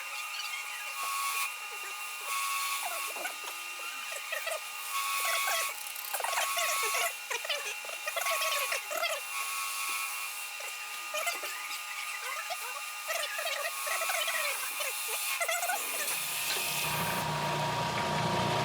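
Wood lathe running with a steady whine and irregular squeaks. Near the end a lower rubbing sound of a tool or abrasive working the spinning wood sets in.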